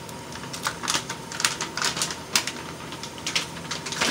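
Food package crinkling and rustling as it is handled, a run of quick, irregular crackles and rustles.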